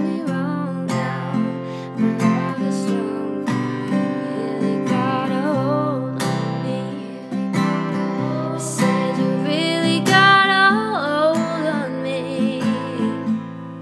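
Background music: strummed acoustic guitar with a wavering melody line over it.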